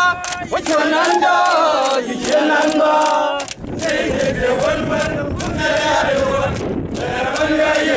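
A group of male soldiers singing a chant together in many voices, with a short break about halfway through.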